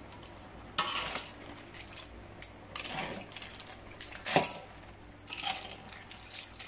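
Metal ladle stirring mussels in coconut-milk gravy in a metal wok: the shells clatter against the wok and ladle in several short bursts, the loudest about four seconds in.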